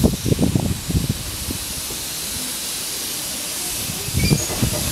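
Narrow-gauge steam locomotive letting off a steady hiss of steam, with steam escaping low at its front where the cylinder drain cocks vent. Wind rumbles on the microphone in the first second and again near the end.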